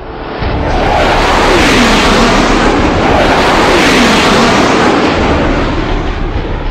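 Loud rushing roar that swells in about half a second in, with two falling whistles sweeping down in pitch, one after the other.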